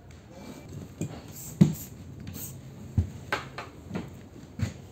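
Six short knocks and clanks as metal items are handled and set down on a steel work stand, the loudest about one and a half seconds in.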